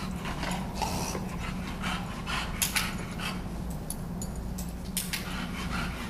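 English bulldog panting, a run of short, irregular breaths, over a steady low hum.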